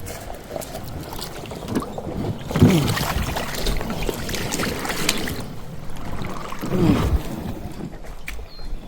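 Water splashing and knocks around a foldable kayak on the water, with two short falling squeaks.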